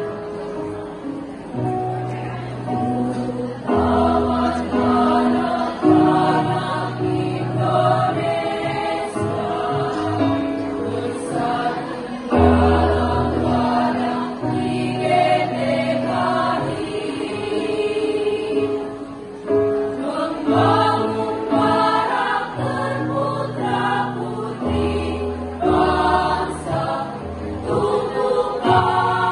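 Women's choir singing a song in parts over instrumental accompaniment that holds sustained low notes.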